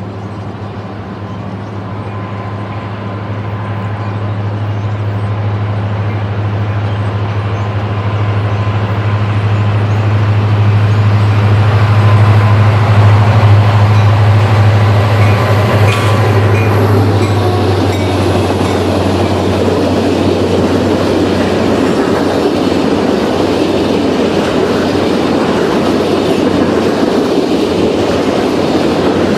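Diesel freight locomotive approaching and passing, its engine drone building to its loudest about halfway through and then fading, followed by the gondola cars of the short Norfolk Southern train rolling by with a steady wheel clatter on the rails.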